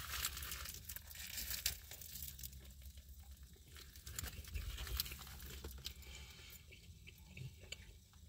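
Faint crinkling and rustling of a paper burger wrapper as the burger is handled, with scattered small clicks and crackles.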